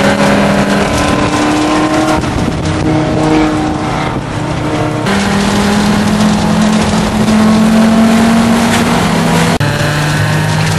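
Engine of the #44 Audi LeMons race car under load, heard from inside the cabin along with wind and road noise. Its drone holds steady pitches, rises slowly in the middle, and jumps abruptly to a new pitch a few times.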